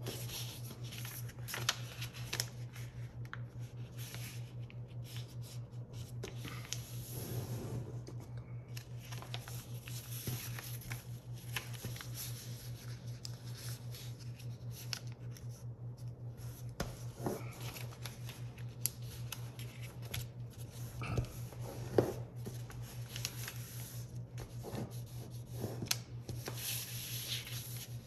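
A sheet of paper rustling and crackling as hands fold and crease it into a paper airplane, with crisp snaps as folds are pressed flat, the sharpest about three-quarters of the way through. A steady low hum runs underneath.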